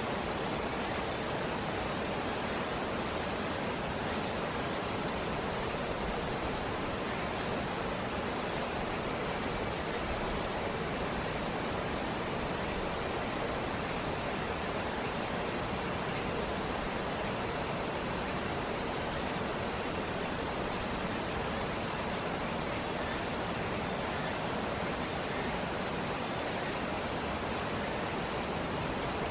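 Insects singing in chorus: a steady high buzz that pulses about twice a second, over a soft outdoor hiss.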